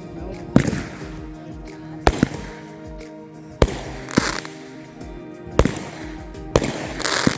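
Consumer fireworks going off: about six sharp bangs at uneven intervals, with a short hissing burst twice, over background music.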